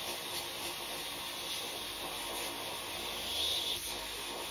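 Vacuum suction through a flat nozzle pressed against an AirPod's speaker mesh, drawing out dirt loosened by cleaning liquid and a brush: a steady hiss, swelling briefly about three and a half seconds in.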